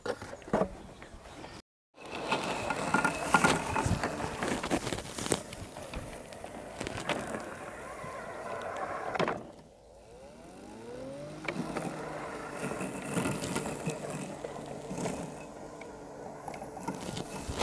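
Flymo 1200R robotic lawnmower running as it climbs a grass slope on wheels fitted with screws for grip, with many small clicks and rattles. About ten seconds in, a whine rises in pitch and settles into a steady hum.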